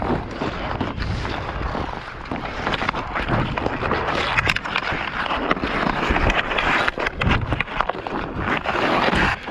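Hockey skate blades scraping and carving across snowy outdoor ice in a continuous hiss. Scattered sharp clicks of a stick on the puck run through it, with wind rumbling on the microphone underneath.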